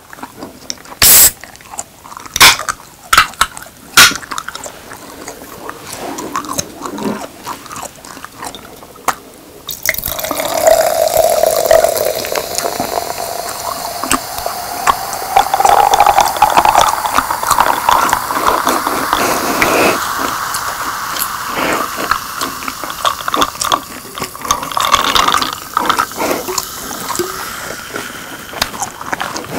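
A Coca-Cola aluminium can opened with a few sharp clicks in the first seconds. About ten seconds in, cola is poured over ice into a glass jar, fizzing, and the pitch of the pour rises as the jar fills.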